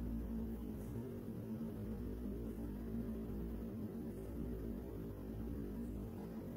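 Steady low hum with faint hiss, with no distinct events.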